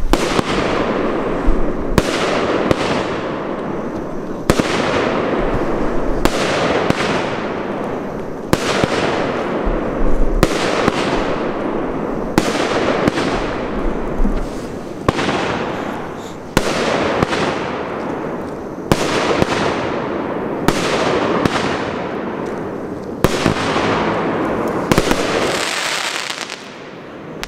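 Weco "Galaxis" 16-shot star-effect firework battery firing shot after shot, roughly one every one to two seconds. Each shot is a sharp launch bang followed by a dense crackling burst that fades over a second or two. The volley thins out near the end.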